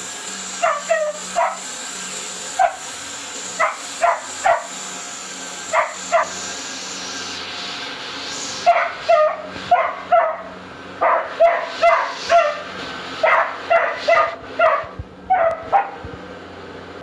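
Beagle puppy barking repeatedly at a running upright vacuum cleaner: short, sharp barks, spaced out at first, then coming quickly at about two a second through the second half. Under them runs the vacuum's steady hum.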